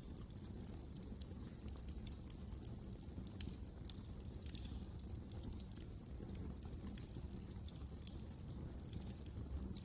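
Wood fire crackling in a fireplace: frequent small, irregular pops and snaps over a low steady rumble of the burning fire.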